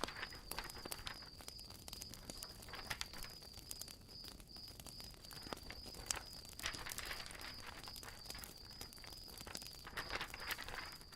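Faint room tone after the narration: a steady high whine with scattered small clicks and faint rustles.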